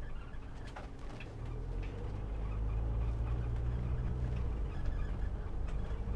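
Motorhome driving slowly on a rough lane: low engine and road rumble that grows louder from about a second and a half in, with short, scattered squeaks. The occupants take the squeaks for the back door, which squeaks only at low speed.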